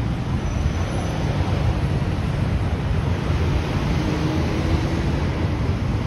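City street traffic: cars running along the road in a steady rumble of engines and tyres.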